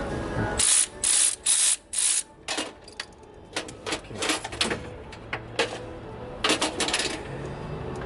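Ratchet wrench clicking in short strokes as a bolt is backed out, four quick strokes in the first couple of seconds and a few more near the end, with scattered tool clicks between.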